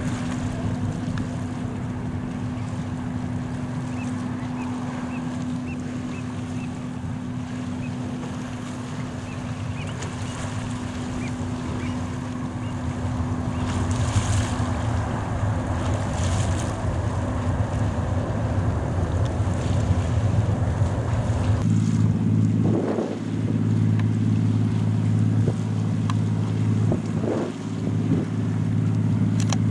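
Jet airliner engines under heavy wind noise on the microphone. First comes the steady rumble of a Boeing 737-800 landing. About two-thirds in, the sound changes abruptly to the steady hum of an Airbus A320's engines as it taxis.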